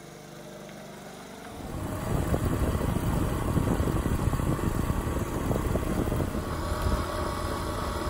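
Small step-through motorcycle, freshly overhauled, running as it rides by. About a second and a half in it jumps much louder, heard from on board: engine mixed with wind rushing over the microphone.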